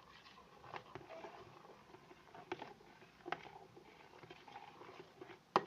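Spoon stirring a runny clear-glue and borax-water slime mixture in a bowl, with scattered light clicks and taps of the spoon against the bowl and a louder knock near the end. The watery sound reflects a mixture that has not yet thickened into slime.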